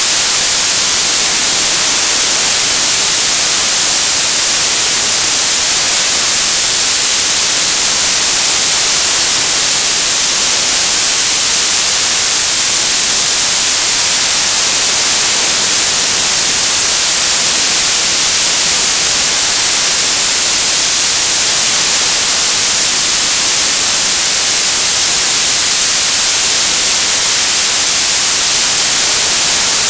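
Analogue TV static: a loud, steady hiss, brightest in the treble, unchanging throughout.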